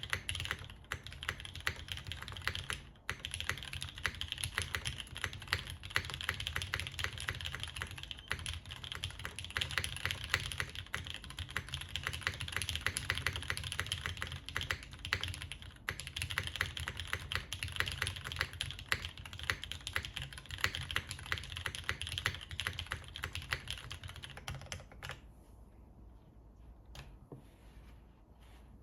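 Fast typing on a JTD Ovinnik TKL mechanical keyboard with Gateron Ink linear switches on an aluminium plate and GMK keycaps, a steady rapid stream of key clacks. Near the end the typing thins out to a few quieter, scattered keystrokes.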